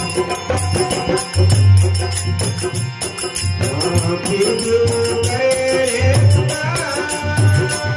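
Rajasthani folk music: a sustained melodic line over a steady drum beat, with jingling metal percussion ticking evenly throughout.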